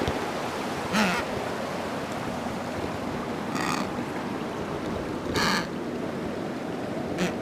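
Penguin calling: four short, harsh squawks spaced a second or two apart over steady background noise.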